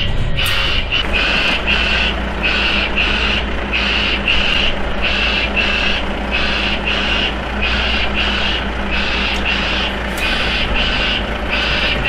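Heavy-haulage truck engine running slowly under load, with a vehicle warning beeper sounding steadily at about two beeps a second.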